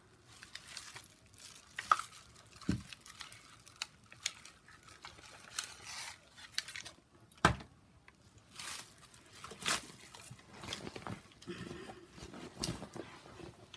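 Crinkling and rustling of craft supplies being handled, with scattered sharp clicks and knocks of small objects set down or picked up; the loudest knock comes about halfway through.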